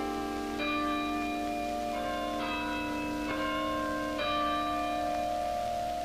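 Tower bells ringing a slow sequence of notes, a new bell struck every second or so and each left ringing over the ones before.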